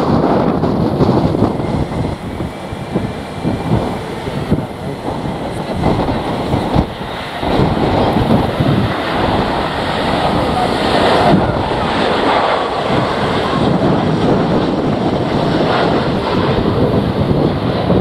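Strong, gusty wind buffeting the microphone, a loud rushing rumble, with the jet engine noise of landing airliners mixed into it.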